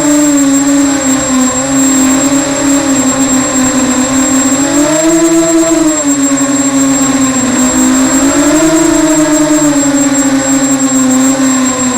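Electric motors and propellers of an FPV multirotor drone, a loud steady whine whose pitch rises and falls twice, about five and about nine seconds in, with the throttle.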